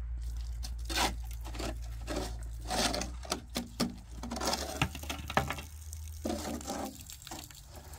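Shovel scraping and scooping gravel mix in a metal wheelbarrow: irregular scrapes and knocks, over a steady low hum.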